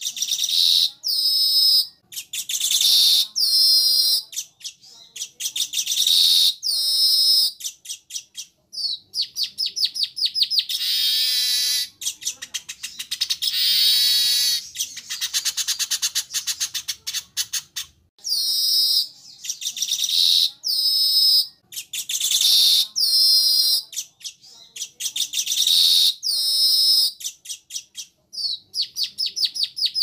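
Weaver bird (manyar) chattering song: repeated high phrases about a second long, each with a fast trill, and a longer run of rapid trilling midway.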